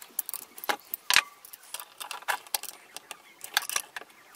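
Irregular small metallic clicks and taps of a nut driver on the screws and washers of a Mobylette moped's magneto stator plate as the ignition coil screws are tightened and fiddled with by hand.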